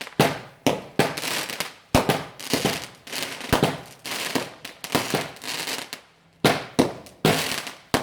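Fireworks going off in quick succession: a string of sharp bangs, about one or two a second, each followed by a crackling fizz, with a brief pause about six seconds in before more bangs.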